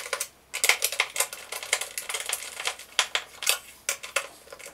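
Hand screwdriver driving the screws that fix a generator's carry handle: a run of irregular small clicks and scrapes, several a second, with a short pause about half a second in.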